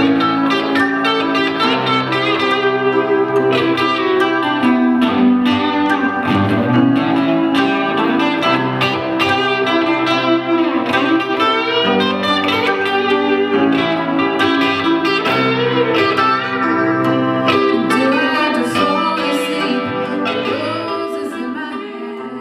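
Instrumental music with rapidly repeated plucked-string notes, likely guitar, that fades out near the end.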